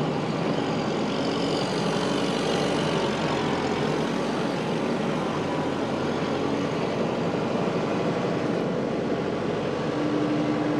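Kubota tractor's diesel engine running steadily as the tractor moves forward, with a steady tone coming in near the end.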